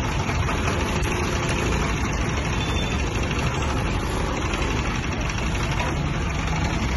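15 kVA diesel generator engine running steadily at constant speed inside its soundproof enclosure, heard through the open enclosure door.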